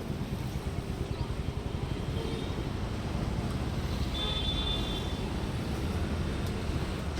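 Steady low rumble of street traffic, with a brief high tone about four seconds in.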